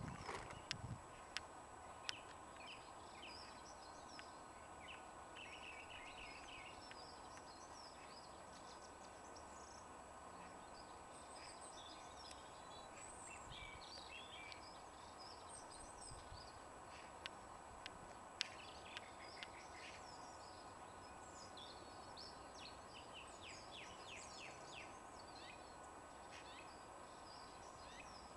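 Faint outdoor ambience of small birds chirping and twittering, many short calls throughout, over a steady low background hiss. A few sharp clicks stand out near the start and again about two-thirds of the way through.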